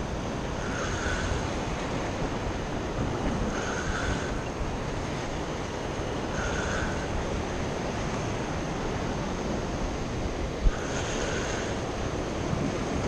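Rough ocean surf washing against a rocky shoreline: a steady rushing noise. A faint higher sound recurs about every three seconds, and there is a single short knock near the end.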